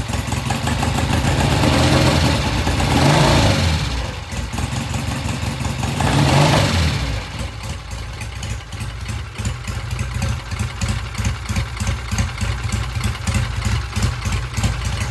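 1966 Triumph motorcycle engine idling and being revved twice off idle by hand at the throttle, with a little stumble as it comes off idle, the sign of a pilot jet and pilot air screw circuit needing adjustment. From about seven seconds in it settles back to a steady, evenly pulsing idle.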